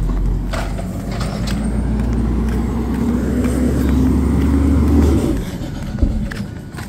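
Garbage truck engine running loudly with a slowly rising note. It drops off abruptly about five seconds in as the truck comes to a stop at a trash cart, and a single sharp knock follows about a second later.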